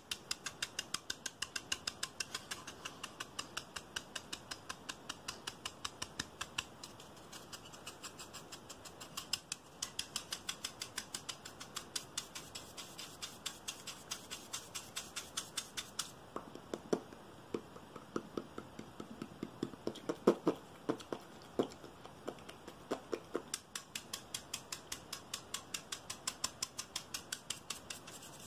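A paintbrush scratched quickly against a rope-wrapped wooden stick for ASMR: crisp, even scratching strokes about three or four a second, with louder, deeper taps in the middle.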